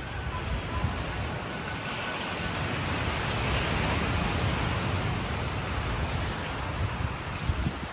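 Ocean surf: a wave wash swells over the first few seconds, peaks near the middle and eases off, with wind rumbling on the microphone.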